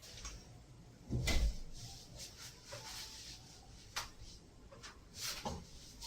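Feet pressing and stepping on a person's back: a heavy thump about a second in, then a few sharp pops as the spine cracks.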